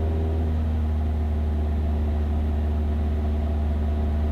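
Cessna 172's piston engine and propeller droning steadily in flight, heard from inside the cockpit: a deep even hum with a higher tone that drops away about half a second in.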